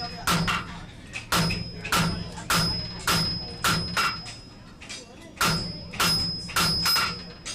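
Hand hammer striking hot iron on an anvil, about two ringing blows a second with a short pause near the middle, while a thumb latch is being forged.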